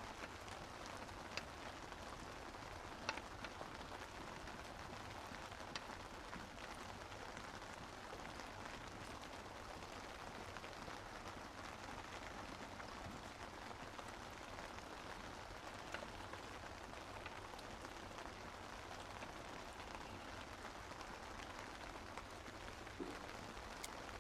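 Steady rain falling, with now and then a single louder drop.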